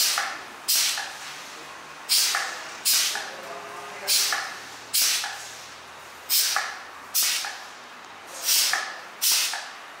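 Pneumatic cap-crimping machine cycling over and over, its air cylinder venting with a sharp hiss of compressed air at each stroke. The hisses come in pairs a little under a second apart, each fading over about half a second, and the pairs repeat every two seconds or so.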